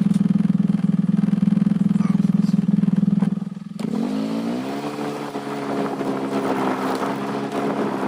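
Motor vehicle engine running steadily. About three and a half seconds in it drops off briefly, then revs up to a higher, steady pitch.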